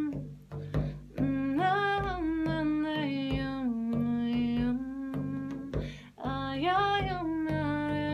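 A woman singing long held notes without clear words, her voice rising and falling, over a steady beat of hand strikes on a large frame drum.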